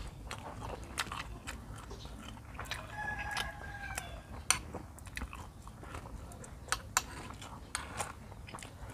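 Close-up eating and handling sounds of raw beef liver being wrapped in cabbage leaves with chili sauce and eaten: scattered soft wet clicks and smacks, a few sharper ones past the middle. A brief faint steady tone sounds about three seconds in.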